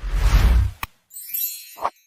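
End-of-video sound effects: a sharp click, then a whoosh with a deep boom, another click, and a high glittering shimmer in the second half.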